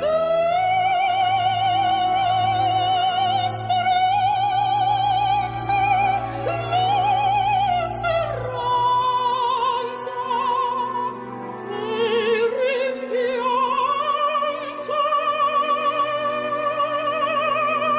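Operatic singing: long held notes with wide vibrato over sustained low accompaniment, stepping up to higher held notes about two-thirds of the way through.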